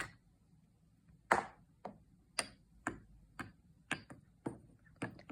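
A wooden toy knocking on a hard surface in an even rhythm, about two sharp knocks a second.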